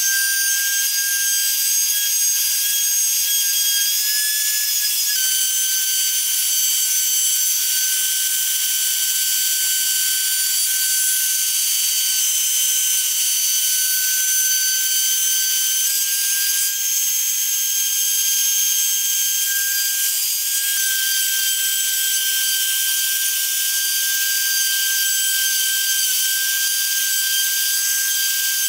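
CNC router spindle whining at a high pitch as a 90-degree carbide V-groove insert bit engraves 18 mm plywood, with a steady rasp of the cut. The whine's pitch shifts slightly a few times as the load on the bit changes.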